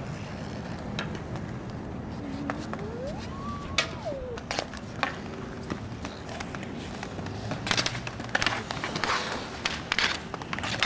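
Outdoor roller hockey: sharp clacks of sticks hitting the ball and each other, over a steady low rumble of inline skate wheels on the asphalt court. The clacks come thickest in a flurry near the end. About two seconds in, one long call rises in pitch and then falls.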